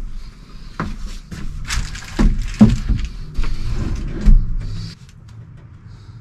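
Wooden bed frame being shifted into place on a vinyl van floor: a run of irregular knocks and scrapes, the loudest about two and a half seconds and four seconds in, dying down about five seconds in.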